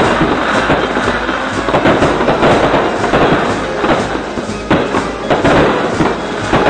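Fireworks display: aerial shells bursting overhead in a dense, continuous run of rapid pops and bangs.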